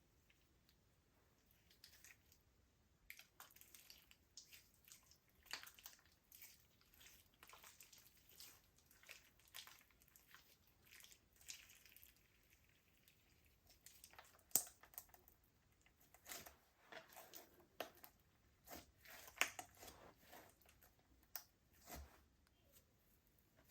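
Slime being squished and mixed, giving faint, irregular sticky clicks and small pops, with a few sharper ones in the second half.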